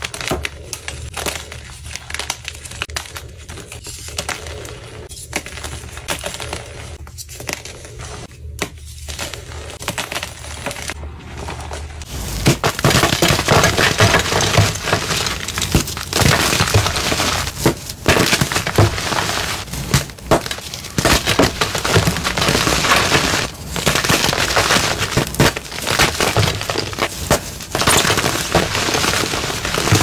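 Blocks of gym chalk crumbling and crunching as they are squeezed and crushed by hand, a crisp crackle of breaking chalk. About twelve seconds in it turns louder and denser, a steady crunching of crushed chalk.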